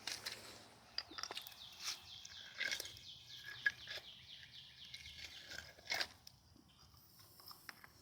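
A bird's rapid trill of many short, evenly repeated high notes falling slightly in pitch, lasting about four seconds. Scattered sharp clicks of footsteps run through it, the loudest near the middle and about six seconds in.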